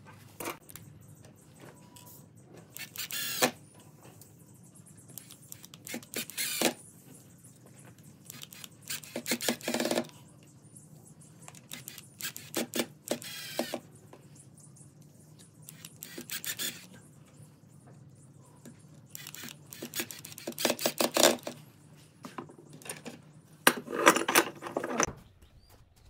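Cordless drill-driver run in short bursts, about every three seconds, driving screws to fit a hinge into the edge of a wooden board, its motor pitch rising and falling within each burst. Small clicks and knocks of handling come in between.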